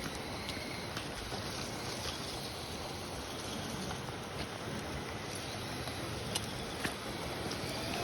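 Water churning and sloshing as a Traxxas TRX-4M RC crawler drives through deep water, with a few scattered sharp ticks over the steady wash.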